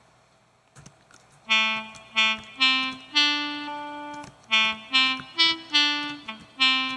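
Brass-like horn tone from a Serum synth patch built by additive synthesis from sine-wave harmonics, with a little reverb. It plays a short melody of about a dozen notes, mostly short, with one held for about a second, starting about a second and a half in.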